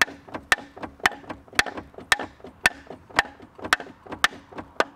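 Hammer tapping a piece of firewood held as a drift against a rust-seized piston in a V8 engine cylinder, to break it loose. Sharp, even strikes about two a second, with lighter taps between.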